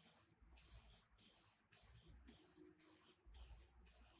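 Gravity-feed paint spray gun spraying yellow paint in short hissing bursts, about two a second, as the trigger is pulled and released.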